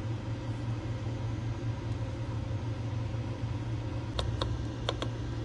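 Steady low hum, with four light clicks about four seconds in as cold spark granules are poured from a glass test tube into the machine's loading hole.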